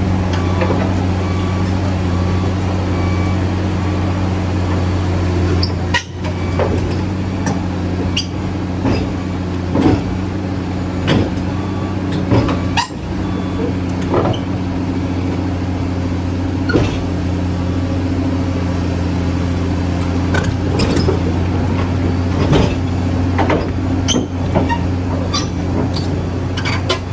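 Heavy diesel engine running steadily at a constant speed, with short clanks and knocks now and then.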